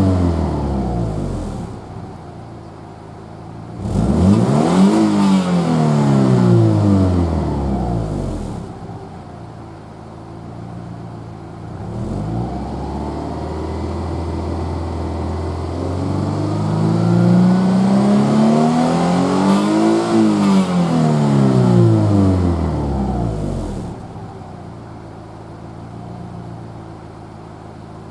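Subaru Legacy B4 2.0R's flat-four engine breathing through a modified stock EJ25 muffler, revved up and down. The revs drop from a high point at the start, jump up sharply about four seconds in and fall back to idle. After a slow climb to a second peak around twenty seconds, the engine settles back to a low idle.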